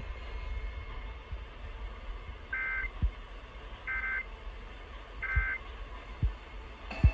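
Emergency Alert System end-of-message data bursts: three short, identical two-tone buzzing chirps about a second and a half apart, which mark the end of the alert. A steady low hum and a few soft low thumps run underneath.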